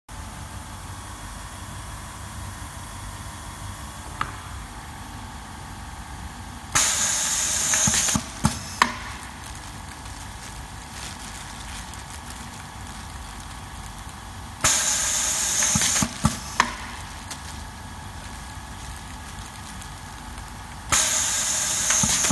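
Pneumatic labeling machine cycling three times: each cycle a loud hiss of compressed air lasting about a second and a half, then two sharp clacks as the press strokes and returns. A steady low hum runs underneath.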